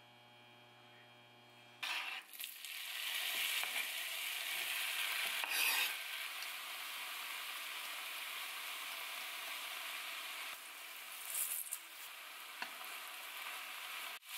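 Food sizzling in a frying pan as it is stir-fried, a steady hiss that starts about two seconds in after a faint hum and swells briefly a couple of times.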